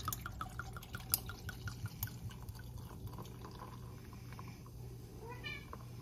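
A house cat meows once near the end, a short call that rises and falls. Earlier, a quick run of small liquid glugs fades out in the first second or so, with a few light clicks.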